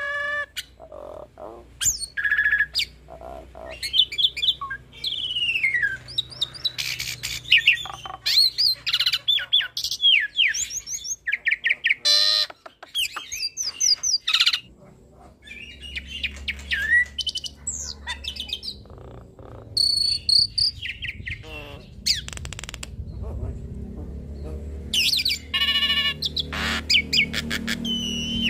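Hybrid starling (Nias hill myna × Asian pied starling) singing a varied song packed with imitated phrases: whistles, rising and falling glides, fast trills and clicks following one another with short pauses. A low steady hum sits underneath from about halfway.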